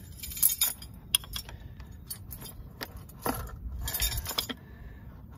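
A metal 23 mm combination wrench clinking and scraping against the tractor's trans-hydraulic drain fitting as it is snugged down by hand: irregular small metallic clinks, thickest about three to four seconds in.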